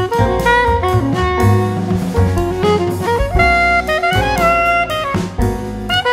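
Background jazz music: a lead melody over bass and drums.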